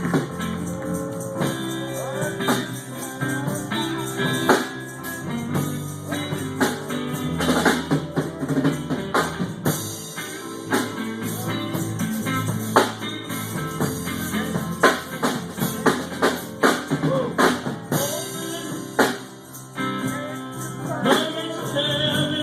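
Live gospel music: a band playing an instrumental stretch with drums and frequent percussion hits over held pitched notes.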